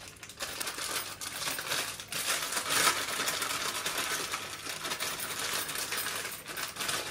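Foil-lined crisp packet crinkling and rustling as it is handled and shaken, a steady stream of small crackles, loudest about three seconds in.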